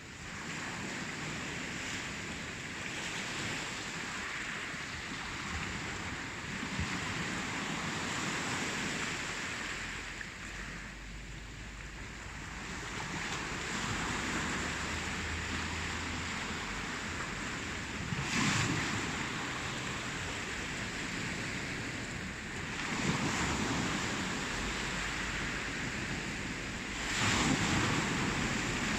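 Ocean surf washing continuously, with waves swelling and ebbing and three louder breaks in the second half.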